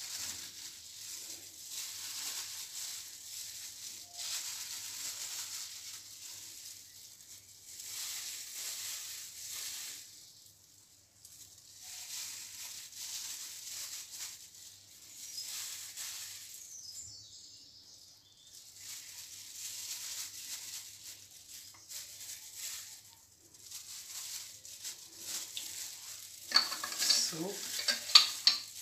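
Crinkling and rustling of thin plastic food-prep gloves as hands lay fish and vegetables onto a flatbread, coming and going in patches. A few sharp clicks and knocks of utensils near the end.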